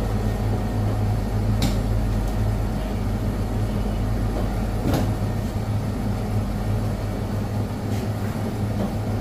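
Steady low machine hum of a commercial kitchen, with a few light clicks about two, five and eight seconds in.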